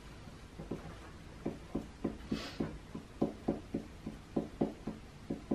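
Marker tip tapping dots onto paper laid on a wooden tabletop: a run of short knocks, about three a second, starting about half a second in. Midway there is a brief scratch of the tip drawing across the paper.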